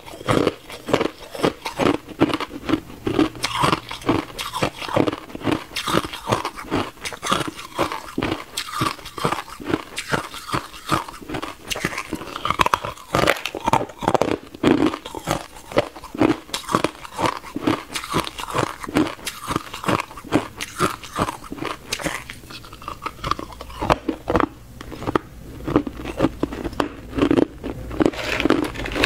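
Hard ice being bitten and chewed, close to a clip-on microphone: a continuous run of loud, sharp crunches, several a second, as the ice cracks between the teeth.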